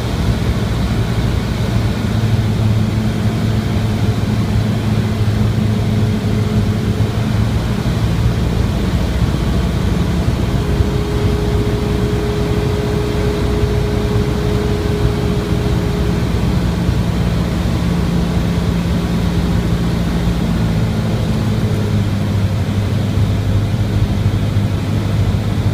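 Cessna 172R's four-cylinder Lycoming engine and propeller droning steadily in cruise, heard inside the cabin.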